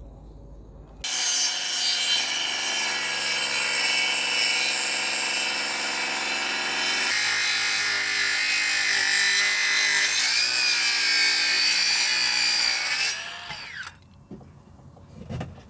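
Electric power saw cutting a length of CLS timber: the motor starts about a second in and runs steadily, its pitch shifting partway through the cut, then winds down with a falling pitch near the end.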